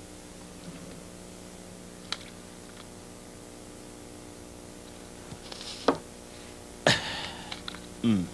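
A metal Chinese water pipe is lit and smoked over a faint steady hum, with a few soft clicks. About seven seconds in there is a short breathy puff as the smoke is blown out.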